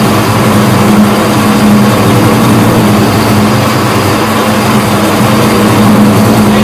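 Small metal lathe running steadily, with a loud, even hum from its motor and gearing as it turns a metal workpiece.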